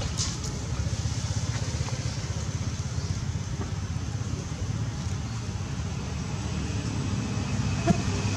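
A motor vehicle engine running steadily, a low pulsing rumble, with one brief sharp click near the end.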